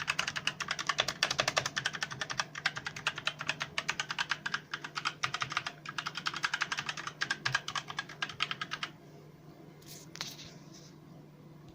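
Fast, continuous typing on a ZET GAMING Blade K180 mechanical keyboard with Kailh Red linear switches, not very loud. The rattle of key presses stops about nine seconds in, followed by a couple of single key clicks.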